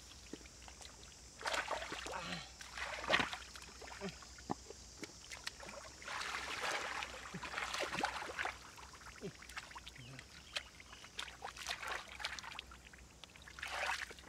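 Shallow muddy water splashing and sloshing as a person wades and gropes through the mud with his hands, in several irregular bursts.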